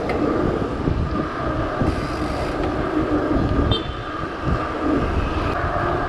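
Wind rushing and buffeting over the microphone of a handlebar-mounted camera on a moving bicycle, a steady rumble throughout.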